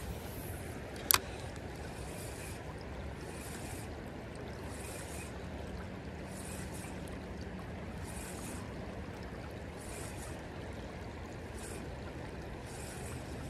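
Flowing creek water running steadily, with soft hissing swells every second or two and one sharp click about a second in.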